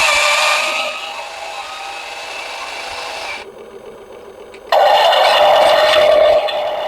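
Small electric motors and gearing of remote-control construction models whining and rattling. The sound drops away abruptly about three and a half seconds in and returns louder about a second later.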